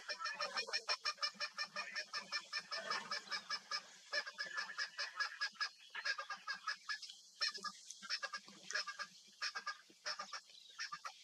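Birds calling in a rapid, honking run of notes, about six a second, with short pauses along the way.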